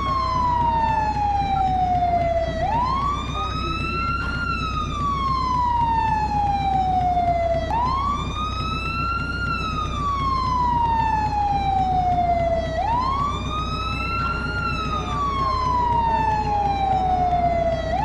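Fire truck siren in wail mode: the tone climbs quickly in pitch and then falls slowly over about four seconds. It repeats roughly every five seconds, three times here, over a low steady hum.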